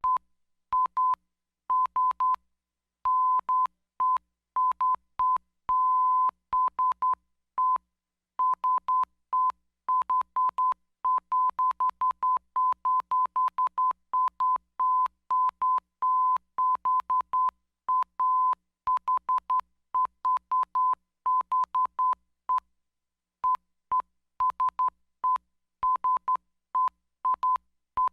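Morse code: a single steady beep tone keyed on and off in quick short dots and longer dashes, with uneven gaps between letters and words and a faint click at each key stroke.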